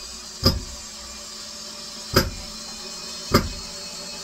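Cordless drill running steadily while driving a screw into the wooden bed frame, with three sharp knocks about a second or more apart.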